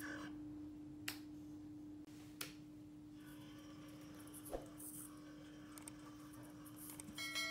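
A faint steady hum with a few light clicks scattered through it. Near the end a short ringing, chime-like tone begins.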